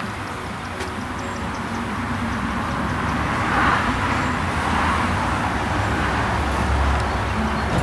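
A motor vehicle running steadily with a low hum, growing somewhat louder from about three seconds in.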